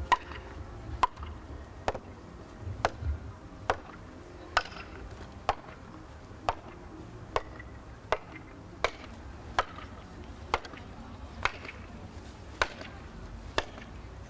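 A sledgehammer striking a stacked wall of painted blocks, one sharp knock about every second, some sixteen blows in all.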